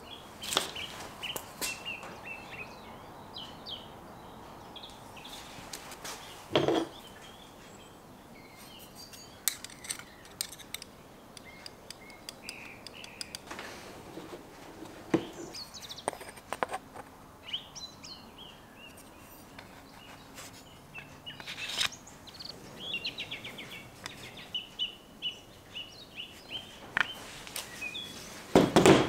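Birds chirping and trilling in the background, with scattered clicks and light clatters of small metal hardware and tools being handled and set down on a workbench; the loudest clatter comes near the end.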